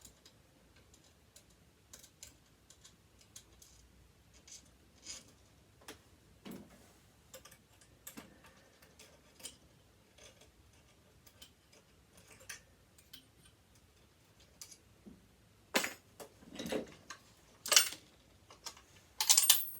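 Light scattered clicks and taps of metal parts inside a partly dismantled sewing machine as it is tipped and handled, with a few louder knocks near the end as a small metal piece drops out.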